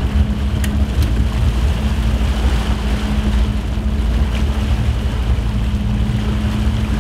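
Sportfishing boat's engine running with a steady drone, a constant hum over a low rumble, mixed with rushing wake water and wind on the microphone.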